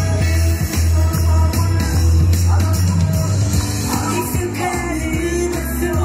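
Upbeat girl-group pop song with a heavy, steady bass line and female singing, played loud over the stage speakers.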